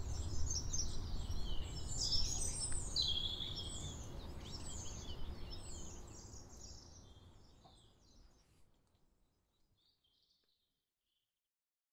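Outdoor ambience of many small birds chirping and trilling over a low steady rumble, fading out gradually over the second half until it is gone.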